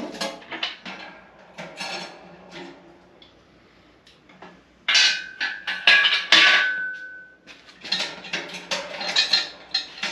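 Steel parts of a 1-ton shop crane clanking and knocking together as it is handled, in a run of sharp metal impacts. About five seconds in comes a loud clank whose ring hangs on for a couple of seconds.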